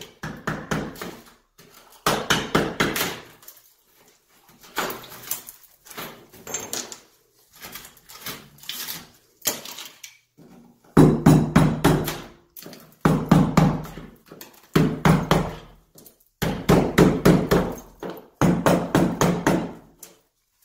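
Hammer striking a chisel against tile and the old shower valve in a cut-out in a tiled shower wall, chipping the valve out to get at the water lines behind. The blows come in quick bursts of many knocks about a second long with short pauses, and they turn heavier and deeper about halfway through.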